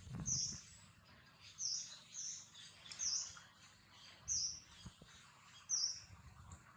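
A bird repeating a short, high chirp about once a second, with a few brief low rumbles between calls.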